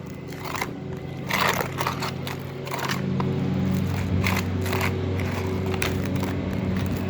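Sticky slime being kneaded by hand, giving irregular crackling squelches, over a steady low hum that grows louder about three seconds in.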